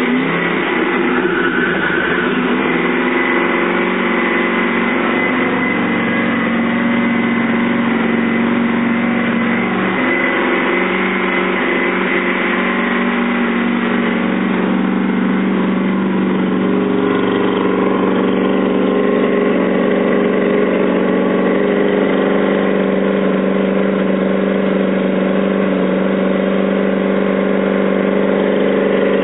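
Jet boat's inboard V8 engine running at idle, steady, with small shifts in pitch a few times.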